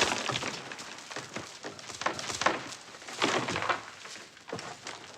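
Irregular knocks and rustling noises.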